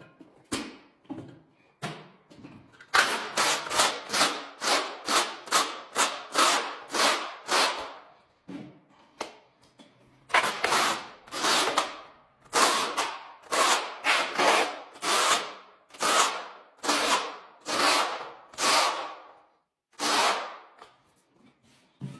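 Steel notched trowel scraping through wet tile adhesive on a floor, combing it into ridges in quick repeated strokes, about two a second, with a pause a little after the middle.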